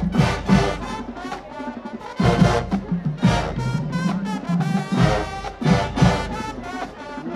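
Marching band brass and drums playing loud, with strong accented brass hits over a steady drum beat.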